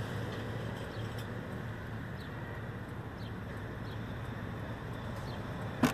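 Low, steady hum of a car's cabin, with one sharp click near the end.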